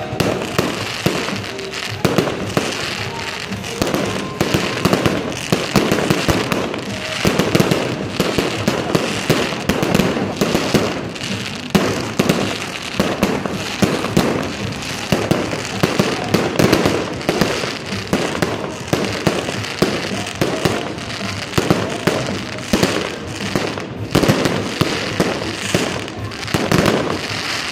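Fireworks going off in a dense, continuous run of bangs and pops, many a second, with music playing underneath.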